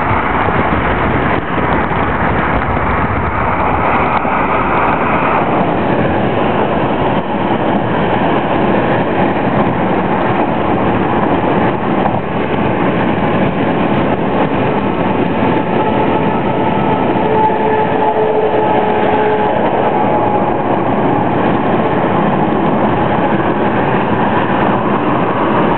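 Steady road and wind noise heard from inside a car's cabin while it cruises at motorway speed, with a faint steady tone for a few seconds past the middle.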